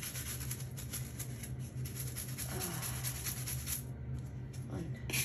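Stiff-bristled plastic scrub brush scrubbing a plastic bath toy in quick rubbing strokes, stopping shortly before the end, over a steady low hum.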